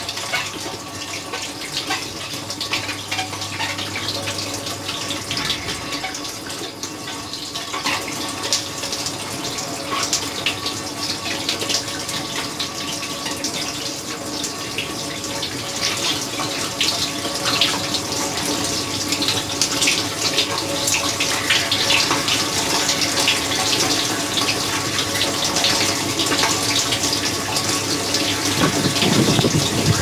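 Water jets from an Electrolux dishwasher's spray arms splash over the racks and dishes, over the steady hum of the wash pump. The spray grows louder through the stretch, and near the end a heavy gush of water hits right against the camera.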